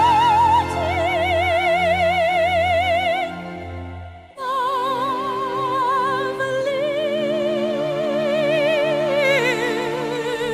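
Operatic musical-theatre singing: a voice holding long notes with wide vibrato over instrumental accompaniment. About four seconds in the music fades and is cut short, then the singing starts again at a new phrase.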